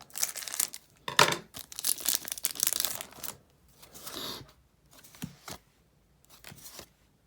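A booster pack wrapper being torn open and crinkled in the hands. The tearing and rustling are densest over the first few seconds, and a few faint clicks follow later.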